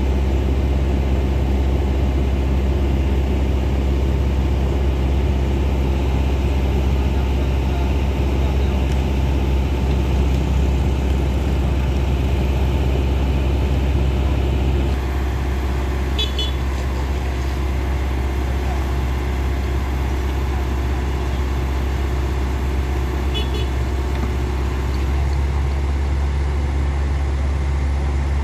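Heavy truck's diesel engine running steadily at close range, a deep even hum that drops slightly in level about halfway through. Two very brief high chirps sound over it in the second half.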